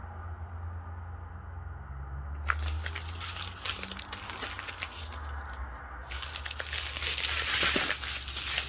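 Small plastic bags of diamond-painting drills crinkling as they are handled: a few scattered crackles at first, then dense, continuous crinkling over the last few seconds, over a low steady hum.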